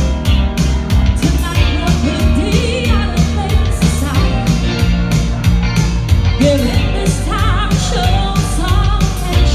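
Live band playing a rock-and-roll style song, a singer over a steady drum beat and a strong bass line.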